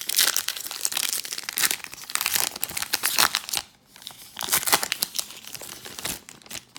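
Foil wrapper of a baseball card pack crinkling as it is torn open and pulled off, in two spells with a short pause between.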